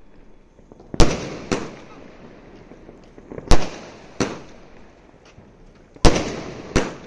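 A multi-shot aerial firework cake (sky shots) firing, with shells bursting overhead. Six sharp bangs come in three pairs about two and a half seconds apart, each bang trailing off into a fading rumble.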